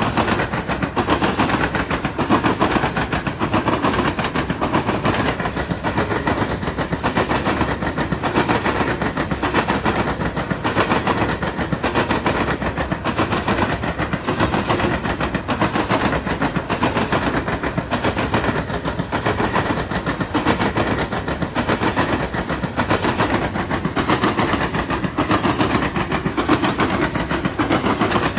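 Loaded coal cars of a freight train rolling past close by, their steel wheels making a rapid, continuous clatter on the rails.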